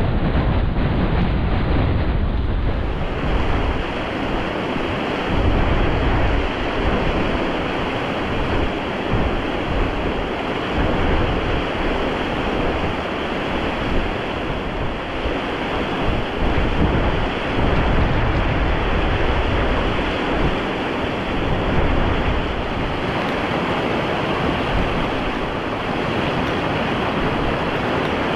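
Strong wind buffeting the microphone in uneven gusts over the steady rush of a fast, swollen mountain stream running in white water.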